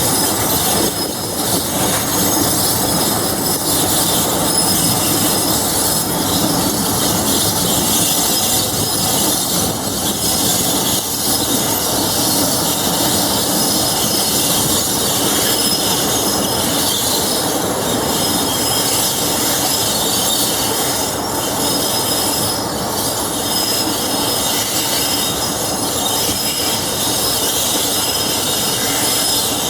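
Brake and bogie squeal from a train hauled by Class 47 diesel locomotive 47077 as it brakes: high metallic squeals that come and go over steady loud rolling noise, with some rail-joint clatter.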